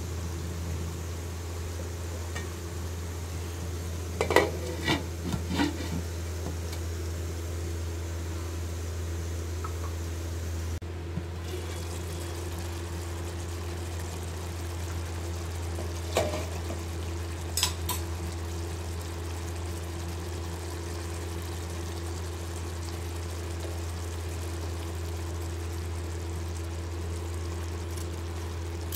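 Wooden spoon stirring chicken and drumstick curry in a pan: a few spoon knocks and scrapes against the pan about four to six seconds in and again around sixteen to eighteen seconds, over a steady low hum.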